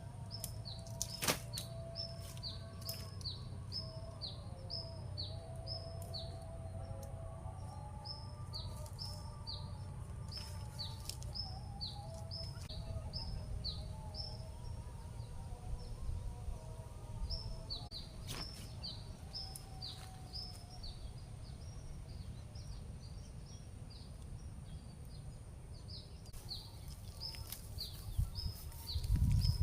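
A bird calling in long runs of short, high, downward-sliding chirps, about two a second, with short pauses between runs. Under it are a fainter wavering lower tone and a steady low rumble, with a few sharp clicks and a low thump near the end.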